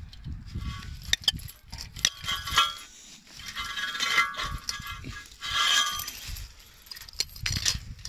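Rusty steel chain and padlock clinking and rattling as they are handled, with a few sharp metallic clicks and two short spells of jangling links.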